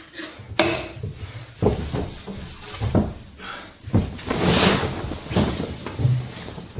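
A run of sharp knocks and thumps, about one a second, as a spray bottle and a tablecloth are handled at a wooden table, with a hissing whoosh near the middle.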